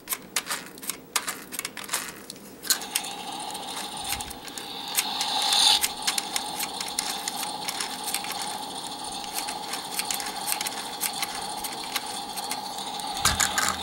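Propeller mechanism of a Disney Planes El Chupacabra talking toy plane. A run of plastic clicks is followed, from about three seconds in, by a small motor whirring steadily with a rapid clicking as the propeller spins, kept going by holding the button down.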